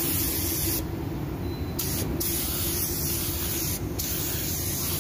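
Gravity-feed paint spray gun hissing as it sprays fade-out (blending) thinner along the edge of a spot repair, melting the dry-spray edge into the old paint. The spray cuts out and starts again several times as the trigger is released and pulled for short passes, over a steady low hum.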